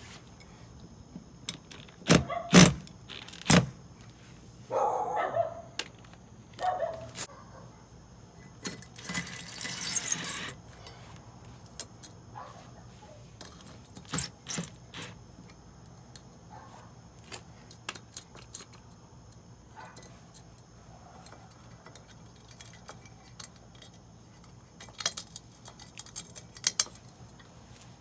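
Metal hardware and tools being handled: scattered clinks and knocks, loudest a few seconds in and again in a cluster near the end, with a short burst of noise about nine seconds in.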